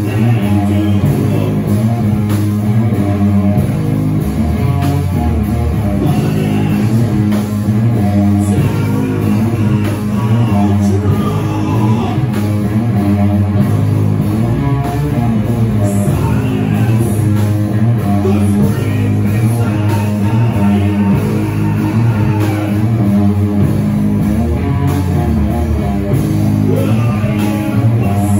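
Doom metal band playing live: electric guitars and drums with a singer's voice, loud and steady throughout.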